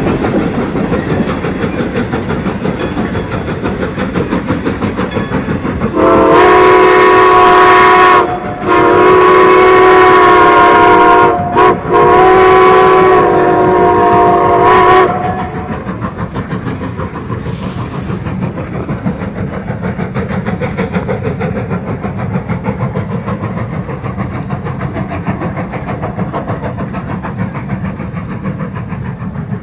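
Steam locomotive whistle sounding several tones at once, blown long, long, short, long: the grade-crossing signal. It starts about six seconds in and ends about fifteen seconds in, over the steady rumble and clickety-clack of the steam-hauled passenger train.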